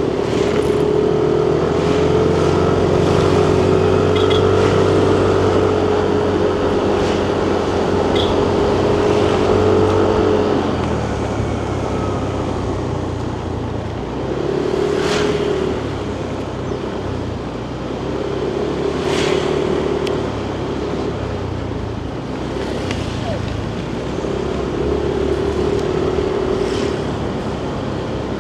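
Yamaha NMAX 155 scooter's single-cylinder engine running on the move. It is held on a steady throttle for about ten seconds, then eases off and picks up again in several short pulls, with traffic noise and a few sharp clicks.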